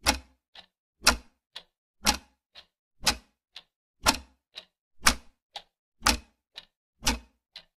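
A clock ticking: a louder tick about once a second, each followed half a second later by a softer tock, stopping near the end.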